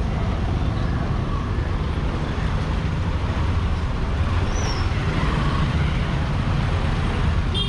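Motorcycle engine running steadily while riding along a street, with road and traffic noise around it.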